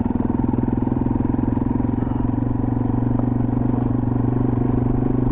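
2021 Yamaha TW200's air-cooled single-cylinder four-stroke engine running at a steady speed as the motorcycle rides along.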